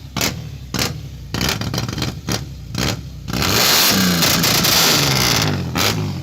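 Chevrolet Opala's six-cylinder engine revved loudly: a string of quick throttle blips, then a longer, louder rev from about halfway through that falls back near the end.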